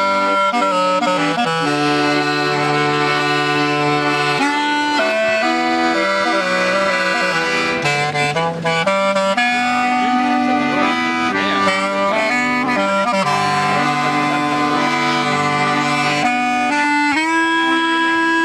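A piano accordion and a handmade wooden clarinet with recorder-style fingering play a tune together in long, held notes.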